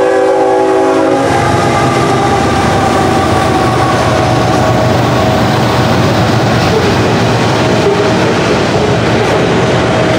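Multi-tone horn of a Norfolk Southern GE ET44AC diesel locomotive sounding until it cuts off about a second in. After that comes the loud, steady rush of the locomotives and a long string of covered grain hopper cars rolling past close by, steel wheels running on the rails.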